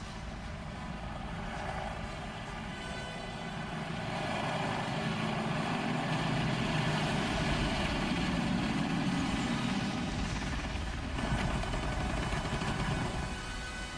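A heavy engine running steadily. It grows louder about four seconds in and eases off near the end.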